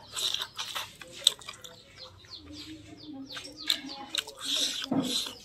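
Close-up mukbang eating sounds: a man chewing rice and pork blood curry eaten by hand, with irregular wet lip smacks and clicks and a longer chewing burst near the end.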